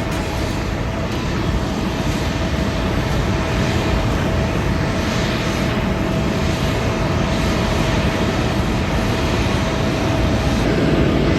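Jet airliner engines, a steady drone with one constant tone, growing slowly louder.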